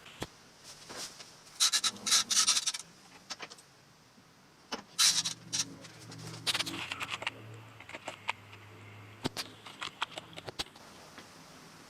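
Milling machine working the square section of a metal bolt: scraping bursts and sharp metallic clicks over the low steady hum of the running machine, which stops about two-thirds of the way in.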